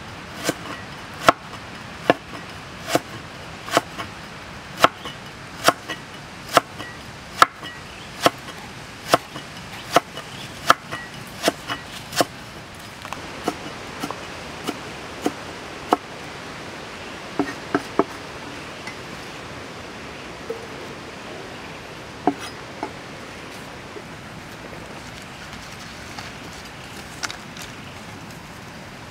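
Cleaver chopping through lemongrass stalks onto a wooden board, a sharp knock with each cut. The cuts come steadily at a little more than one a second for about twelve seconds, then grow fewer and further apart.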